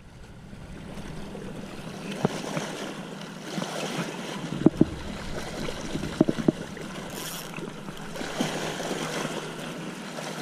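Steady wash of water and wind noise, fading in over the first second or two, with scattered sharp clicks and knocks, the loudest a close pair a little before the middle and another pair a little after.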